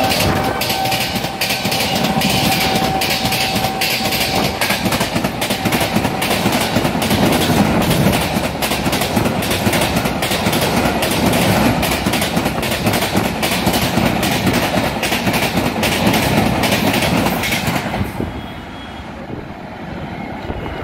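An Indian Railways superfast express runs through the station at speed: a steady loud rush of wheels on rail with rapid clickety-clack over the rail joints. The train horn, still sounding as the train goes by, fades out in the first few seconds. Near the end the sound drops away as the last coach passes and the train recedes.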